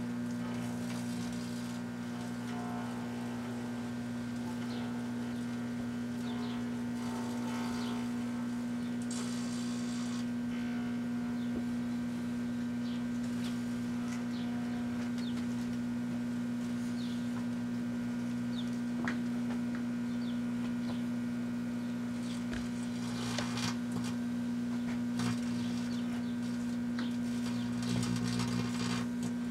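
Kenmore microwave oven running with a steady low hum while earbud headphones burn inside it. Faint short high-pitched sounds come and go over the hum.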